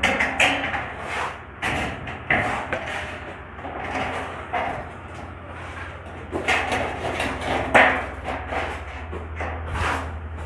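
Construction work: irregular knocks and bangs, the loudest about eight seconds in, over a steady low hum.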